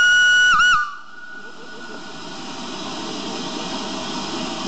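Departure whistle of the steam locomotive LMS Ivatt Class 2MT 46512: one long high note that ends with two quick dips in pitch within the first second. Then a steady hiss of escaping steam from the engine, slowly growing louder.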